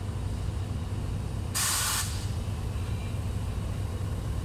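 Diesel locomotive engine running with a steady low rumble as the train moves off. About a second and a half in comes a sudden half-second hiss of compressed air being vented.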